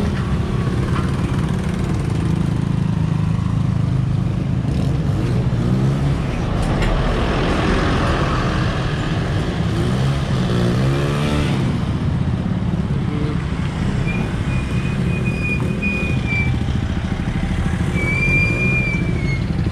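Vehicle engine running steadily while driving along a road, its note rising and falling for several seconds about halfway through. Two short high-pitched squeals come near the end.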